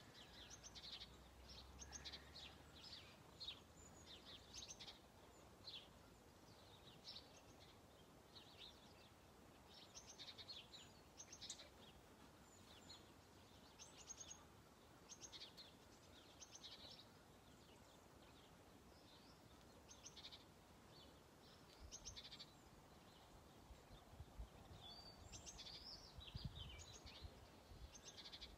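Faint birdsong: small birds giving quick, high chirps and twitters at irregular intervals, over a quiet outdoor hush. A few soft low bumps come in the second half.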